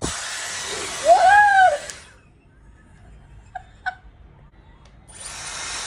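Dyson Supersonic hair dryer blowing with a steady hiss, switched off after about two seconds and switched on again about five seconds in. A woman's brief exclamation sounds over the airflow about a second in, and two light clicks come in the pause.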